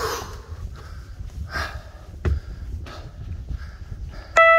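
Footsteps on a hiking trail with the hiker's breaths, then near the end a sudden, loud electronic chime of several bell-like tones from the Tranggle hiking-tracker app, the cue for its spoken distance update.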